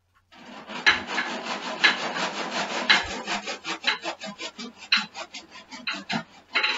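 Wood being rasped by hand at a workbench: longer scraping strokes at first, then quicker short strokes, about four a second.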